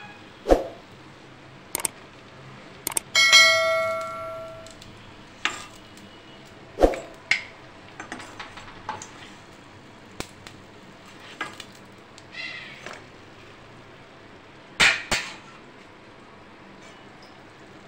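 A steel ladle clinking and knocking against a kadai and steel pans as fried khaja are lifted out of the oil and dropped into sugar syrup, a dozen or so separate knocks. One strike about three seconds in rings on like a bell for over a second.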